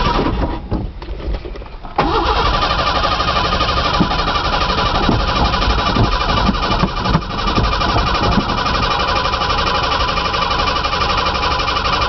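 Ford Ranger's 2.9-litre V6 turning over on the starter about two seconds in, cranking steadily for some ten seconds without catching: a cold no-start after the truck has sat for two months.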